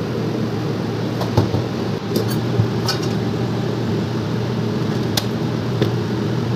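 Steady low mechanical hum of kitchen background noise, with a few light clicks and taps as plastic containers and steel utensils are handled.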